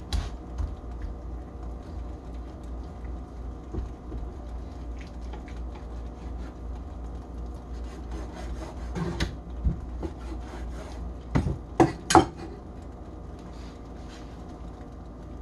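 A kitchen knife sawing and slicing through raw chicken breast on a cutting board, with scattered small clicks and a few sharper knocks of the blade against the board around nine and twelve seconds in, over a steady low hum.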